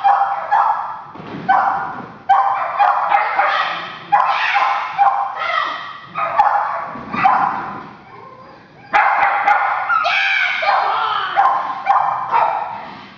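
A dog barking and yipping excitedly over and over in quick runs, with a brief pause about two-thirds of the way through. Each bark starts sharply and rings on in a large echoing hall.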